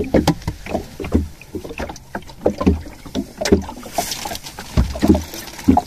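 Irregular knocks and thumps on a small fishing boat, with water sloshing against the hull and a brief hiss about four seconds in.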